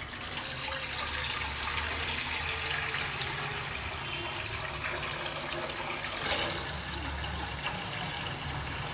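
Water running steadily into a pot to be boiled, a continuous rushing pour.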